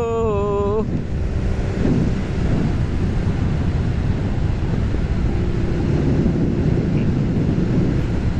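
Steady wind rush buffeting the microphone of a Harley-Davidson Street Rod motorcycle riding at road speed, with the bike's engine running underneath.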